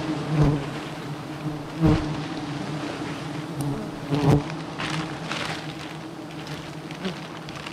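A swarm of giant honey bees buzzing in a steady drone around their comb. Single bees swell loudly as they fly close past the microphone, about half a second, two seconds and four seconds in.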